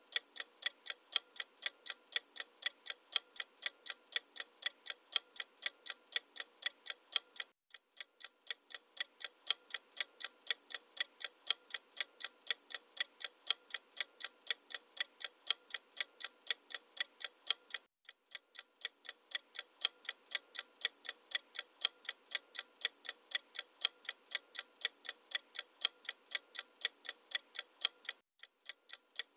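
Steady clock-ticking sound effect, a few sharp ticks a second, marking the answer time for each quiz question. It breaks off for an instant three times, about ten seconds apart, as the loop restarts.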